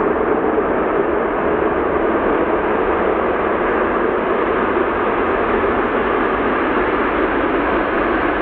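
Antonov An-225 Mriya's six D-18T turbofan engines running steadily as the aircraft taxis, a continuous even jet noise that holds its level throughout.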